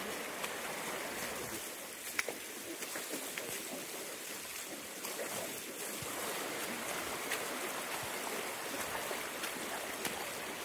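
Shallow river rushing and splashing over stones, swollen and fast after heavy rainfall, with a few faint brief knocks.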